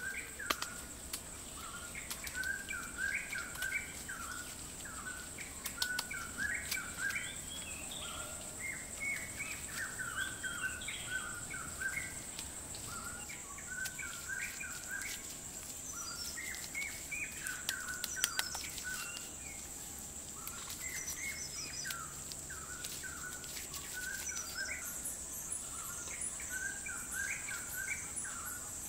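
Birds chirping in short repeated calls over a steady high-pitched insect drone, with scattered light clicks.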